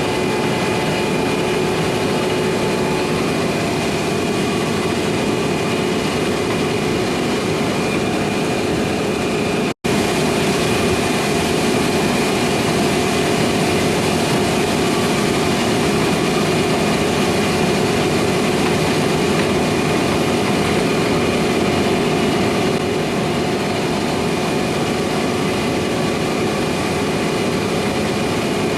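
Heavy harvest machinery running steadily, a diesel engine's steady drone with a whine over it. The sound drops out for an instant about ten seconds in.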